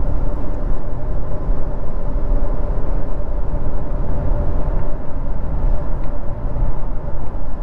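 Steady in-cabin road noise of a 2023 Honda CR-V EX-L AWD cruising at highway speed: a low rumble of tyres and wind with a faint steady hum from the 1.5-litre turbo four-cylinder and its CVT.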